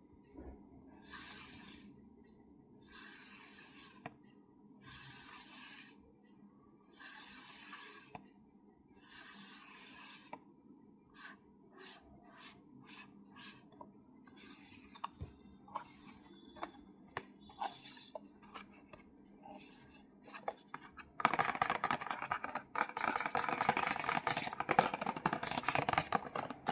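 ASMR tapping and scratching on a hard object: five slow scratching strokes about two seconds apart, then separate light taps and clicks, and from about three-quarters of the way in a louder, dense run of rapid fingernail tapping.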